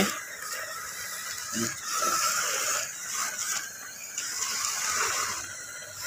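Remote-controlled mecanum-wheeled robot pushing a push sweeper over floor tiles. Its drive motors whine while the wheels and sweeper brushes scrape on the tiles, the sound swelling and easing several times as it moves.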